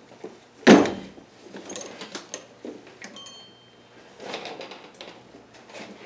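Metal hand tools being rummaged and shifted about: one loud clunk under a second in, then scattered clinks and rattles, with a longer clatter about four seconds in.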